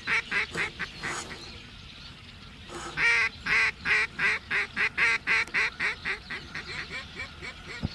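Duck quacks in a long descending series, a greeting or hail call: loud at first, then fading, about four quacks a second. A shorter series ends about a second in.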